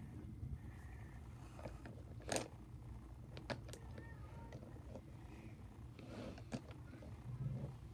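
Plastic megaminx pieces clicking as they are handled and pressed into the puzzle: a sharp click about two and a half seconds in, a quick pair a second later and another near the end, over a low steady hum.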